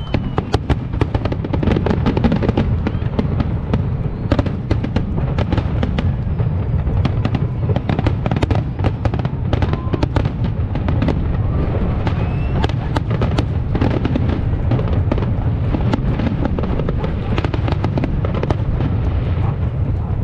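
Fireworks display: a rapid, continuous string of cracks and pops from bursting shells over a steady low rumble of booms, with an occasional rising whistle.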